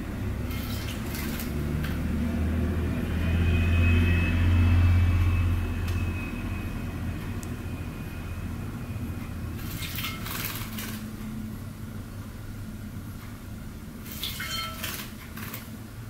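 A canary bathing in a shallow bowl of water, with three short bursts of splashing: one near the start, one about ten seconds in and one near the end. Under them runs a steady low rumble, loudest around four to five seconds in.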